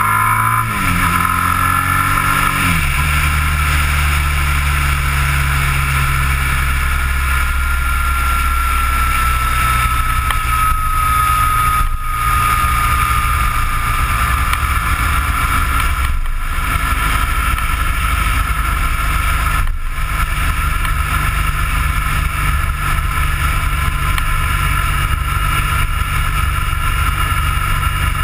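Engine of the vehicle carrying the camera, running on the road: in the first three seconds its note drops and then settles to a steady cruise. Midway a faint high whine glides slowly down in pitch.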